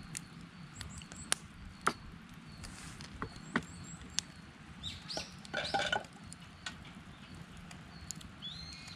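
Wood fire crackling, with irregular sharp snaps and pops, while small birds chirp and one calls louder about five to six seconds in.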